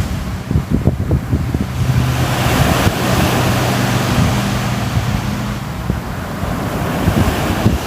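Sea waves surging and washing on the shore, one swell rising to a peak a few seconds in and easing off again near the end, with wind buffeting the microphone in a low rumble.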